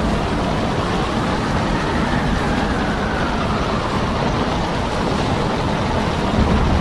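Storm-force wind blowing across the microphone over a heavy sea: a loud, steady, dense rumble, with a faint whistle that slowly falls in pitch midway through.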